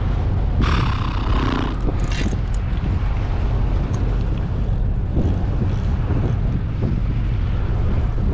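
Wind buffeting the microphone, a steady low rumble throughout, with a brief hiss about a second in and a short crackle near two seconds.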